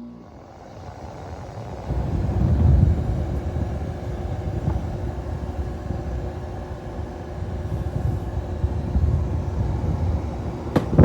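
Ceiling fan and window air conditioner running: a steady low rumble with a faint hum, building up over the first two seconds. A sharp click comes near the end.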